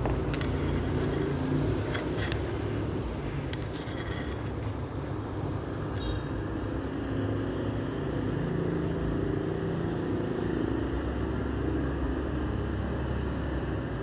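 Panasonic F-EY1511 ceiling fan running at speed with a steady low rumble. A few clicks come in the first six seconds.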